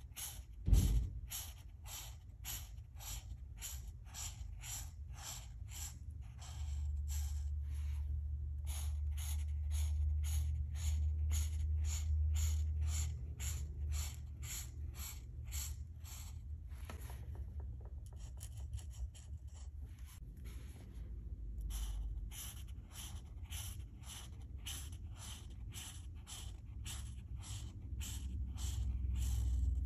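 Alcohol marker strokes scratching back and forth across paper in a steady rhythm of about two or three strokes a second, thinning out briefly past the middle. A single low thump about a second in.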